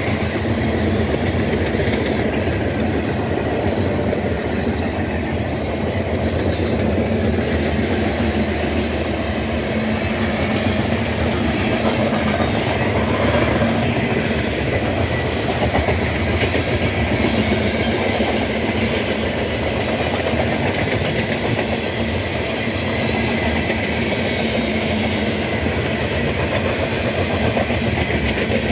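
Covered hopper cars of a Union Pacific freight train rolling past close by: a steady, loud noise of steel wheels running on the rails.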